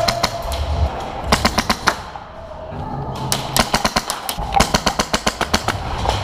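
Airsoft guns firing on full auto, rapid bursts of sharp cracks at about ten shots a second, with a short lull about two seconds in before the firing picks up again.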